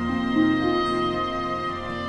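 Slow background music of long held notes.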